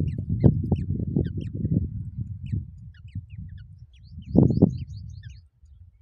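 Black drongo nestlings giving short, high, falling begging chirps, repeated many times and thickest about four to five seconds in. A loud low rumble with knocks sits beneath them, strongest in the first two seconds, with a loud burst about four and a half seconds in.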